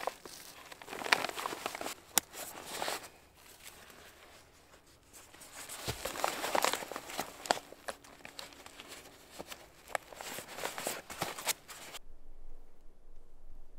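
Rustling, scraping and sharp clicks of a nylon backpack being handled and a rolled foam sleeping pad being strapped onto it. About twelve seconds in, the handling stops abruptly and only a faint, quiet outdoor background remains.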